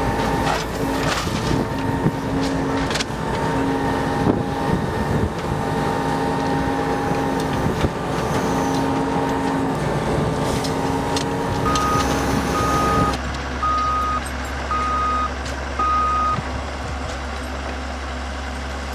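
Engine of a track-construction machine running, with a pulsing mechanical whine and scattered metal clanks. About twelve seconds in, the sound changes to a steady low engine drone, and a reversing alarm beeps five times, about one beep a second.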